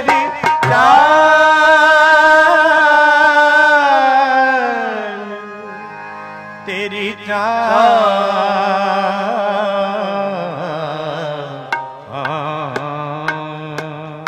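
Sikh shabad kirtan: a long held sung note that slides down about four seconds in, followed by wavering drawn-out sung phrases over accompaniment, with tabla strokes near the end.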